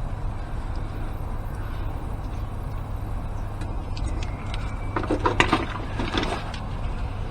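Hands handling a small plastic electrical connector and its tape: a short run of light clicks and rustles about five seconds in, over a steady low background hum.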